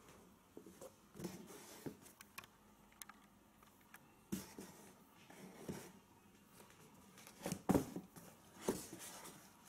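Faint handling noise: hands brushing and moving a sneaker on a cardboard shoebox, with scattered light taps and a few brief rustling swishes.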